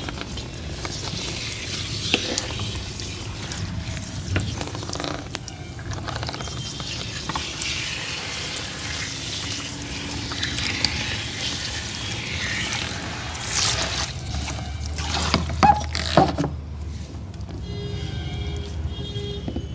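Water being poured and splashed during a hair wash, with wet rubbing and scattered small splashes, and two sharper, louder splashes or knocks about three-quarters of the way through.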